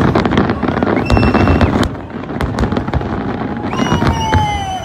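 Aerial fireworks bursting in a dense, rapid run of bangs and crackling. A few held high whistling tones sound over them, one sliding down near the end.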